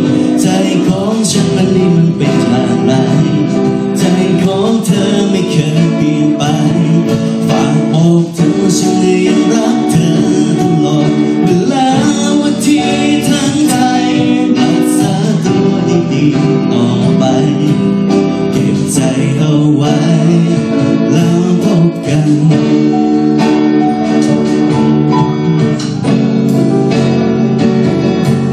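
Live band playing amplified music: guitar and drum kit, with singing.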